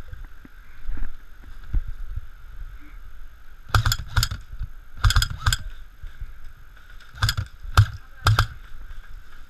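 Airsoft gun firing seven single shots: two quick pairs, then three shots about half a second apart.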